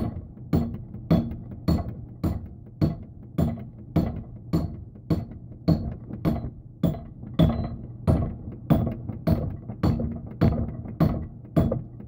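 Steady, evenly spaced hammer blows, about two a second, with a short metallic ring on each strike, driving a steel axe head down onto a new wooden handle. The blows stop near the end.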